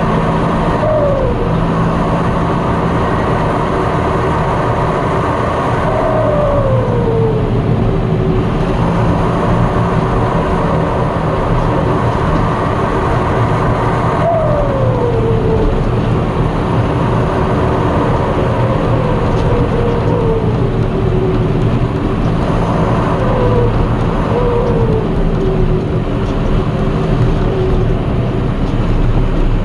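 John Deere 6230 Premium tractor's diesel engine running under load, heard from inside the cab, its turbocharger whistle falling in pitch each time the throttle eases off, several times over a steady engine drone. The turbo's variable-geometry control is switched off.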